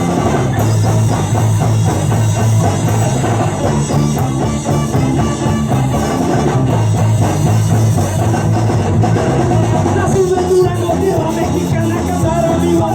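A ska band playing live, loud and steady.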